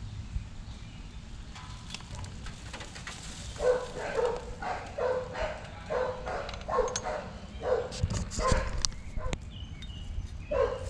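A dog barking in a run of about a dozen short barks, with a few sharp clicks among them.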